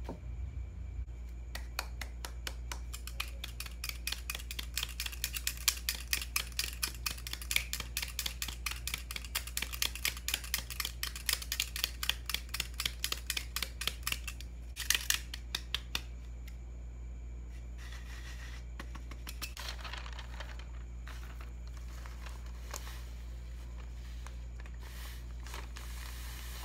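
Round stainless-steel sieve tapped and shaken by hand to sift almond flour and powdered sugar: a quick run of light taps, several a second, for about twelve seconds, then sparser taps and rustling. A steady low hum lies underneath.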